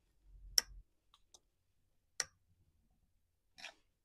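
Screwdriver tightening the top mounting screw of a Stihl MS250 chainsaw's ignition coil, giving two sharp metal clicks about a second and a half apart, with a low bump near the start and a softer scrape near the end.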